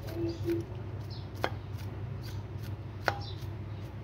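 Sharp, irregular taps of a spice container being knocked and shaken to sprinkle black salt over glasses of lassi, about two a second, over a steady low hum.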